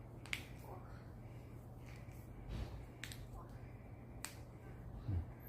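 Finger joints cracking under manual manipulation: three sharp, separate pops, about a third of a second in, at about three seconds and just past four seconds. Such joint pops are normal and harmless.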